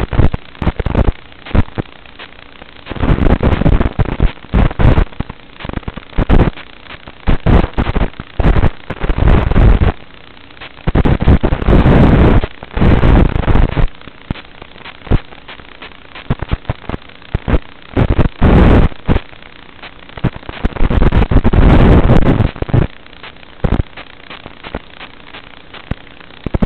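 Racing quadcopter's motors and propellers, with air rushing over its onboard microphone. The sound surges in loud noisy bursts of a second or two as the throttle is punched, with many short sharp pops and quieter stretches between.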